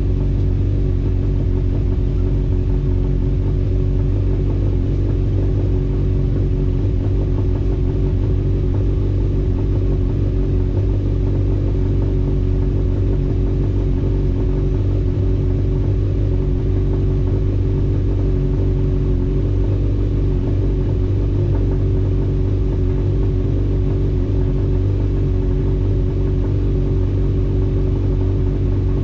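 Honda CB1000R's inline-four engine idling steadily, warming up after a hard cold start.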